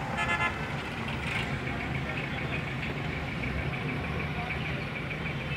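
Steady low rumble of vehicle engines idling and creeping in a slow traffic jam, heard from inside a vehicle, with a busy crowd's voices in the background.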